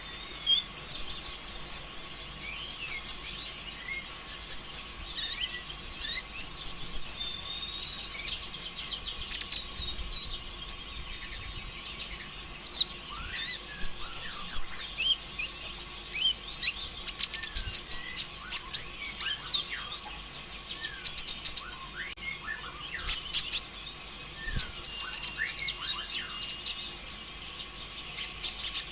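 Kolibri ninja (konin), a small sunbird, singing in a fast, jumbled 'konslet' style: a dense stream of sharp high chirps, ticks and short trills in quick bursts, with barely a pause. A faint steady hum runs underneath.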